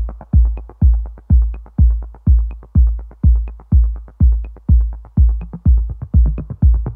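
Electronic dance music: a heavy, booming kick drum beating steadily about twice a second, with light clicking percussion between the beats and no melody yet.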